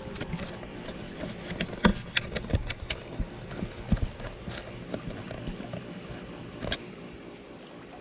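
Irregular clicks and knocks, loudest about two and four seconds in, with one more near the end.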